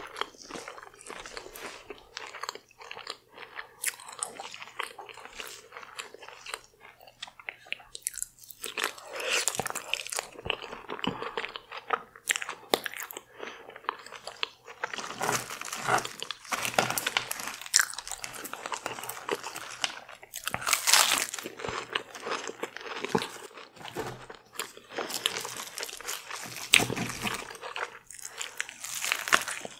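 Close-miked eating: a person biting into and chewing deep-fried, Doritos-crusted seafood, with irregular crunches and bites all through.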